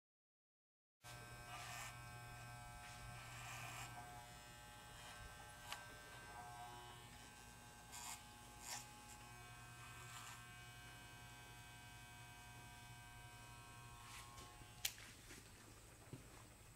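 Electric horse clippers running with a steady, faint buzz as they trim a colt's hair at the poll, starting about a second in. A few sharp clicks stand out over the buzz, the loudest near the end.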